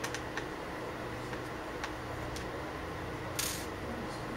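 Faint clicks and taps of a Phillips screwdriver and small screws against the plastic underside of an HP EliteBook 8440p laptop as its keyboard screws are taken out, with one brief scraping rustle about three and a half seconds in. A steady room hiss runs underneath.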